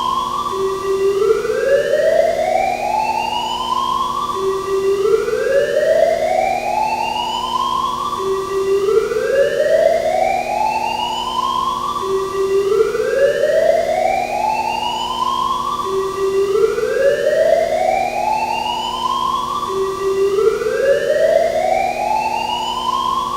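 Arena fire alarm sounding its evacuation signal: a whoop tone that sweeps upward in pitch for about three seconds, drops back and starts again, about six times in a row.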